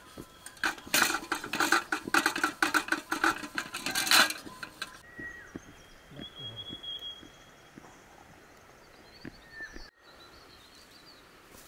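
Pots and dishes clinking and knocking together as they are handled, a rapid run of sharp clinks that stops suddenly about five seconds in. After that there is only a quiet outdoor background with a few faint high chirps.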